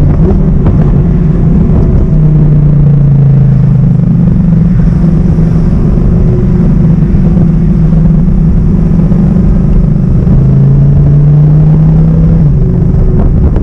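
Audi R8's naturally aspirated V10 running under way at fairly steady revs, a loud, even engine drone whose pitch steps slightly a few times.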